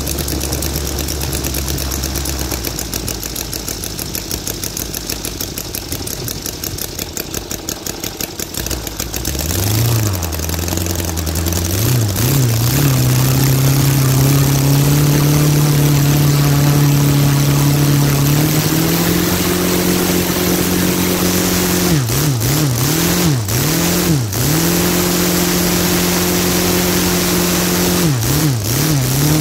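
Saito FG-60R3 three-cylinder four-stroke petrol radial engine, freshly repaired and serviced, turning a two-blade carbon propeller: it idles steadily for about nine seconds, then is throttled up in steps to a steady high-speed run. Twice, near the middle and near the end, the throttle is blipped quickly down and up.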